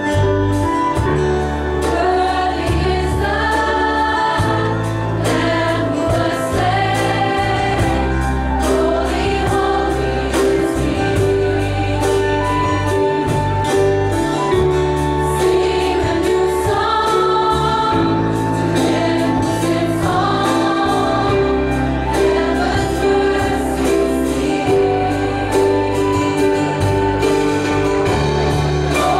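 Mixed youth choir singing a hymn in parts, with instrumental accompaniment holding low sustained notes underneath.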